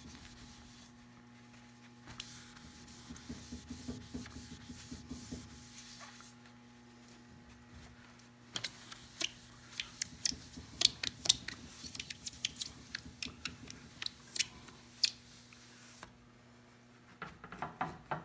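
A soft cloth wiping and rubbing over a freshly polished, varnished wooden hull to lift specks of dust. Through the middle there is a busy run of sharp little ticks and squeaks from the cloth and hand on the gloss, with a few more near the end. A low steady hum sits underneath.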